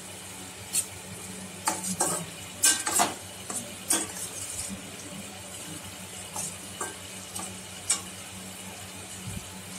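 Perforated steel skimmer stirring and scraping chopped vegetables against a stainless steel kadai: irregular clinks and scrapes, denser in the first four seconds, then only now and then.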